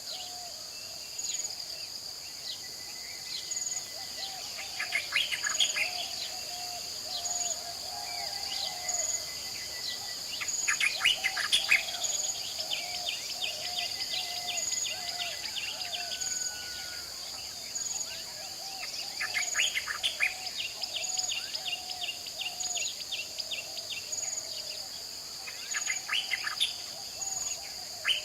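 Natural ambience of insects and birds: a steady high insect chirring with a regular high pip about once a second, and bird calls and quick trills breaking in every few seconds over a lower, repeated warbling call.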